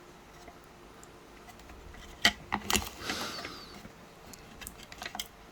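Hand-handling of the opened Bluetooth speaker and its small parts: a few sharp clicks and knocks of hard plastic about two seconds in, a brief scraping rustle just after, then a few light ticks near the end.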